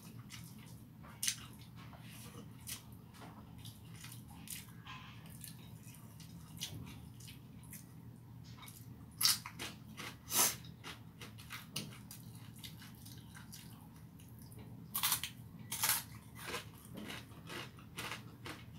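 A person eating rice by hand, up close: chewing and mouth smacks with scattered short clicks. The loudest clicks come twice around nine to ten seconds in and twice around fifteen to sixteen seconds in, over a faint steady low hum.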